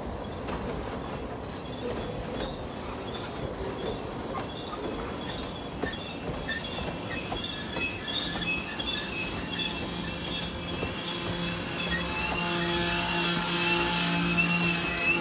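G-scale model freight cars rolling on curved track, their wheels squealing against the rails in a wavering high pitch that grows louder near the end, over a steady rolling rumble.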